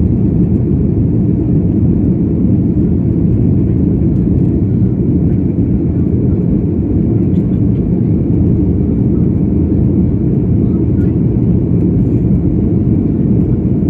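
Cabin noise of a Boeing 737-800 in flight: its CFM56 jet engines and the airflow over the fuselage making a steady, deep rumble at an even level.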